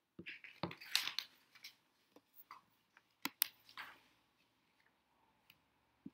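Handling noise close to the microphone: a cluster of rustles and knocks in the first second or two, then two sharp clicks about three seconds in, dying down to a few faint ticks.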